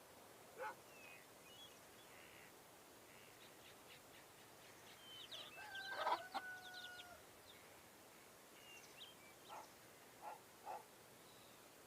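Faint nature ambience of birds calling: scattered short high chirps and a few brief calls, with one louder drawn-out call about six seconds in.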